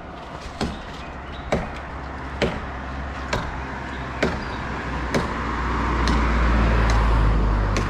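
Evenly spaced sharp striking blows, a little under one a second, over a low motor drone that swells in the second half and drops away near the end.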